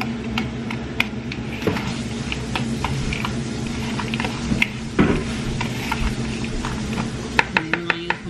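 Metal spoon clinking and scraping against a mixing bowl while stirring a crumbly topping, a scatter of light clicks with a quicker run of clicks near the end. A steady low hum runs underneath.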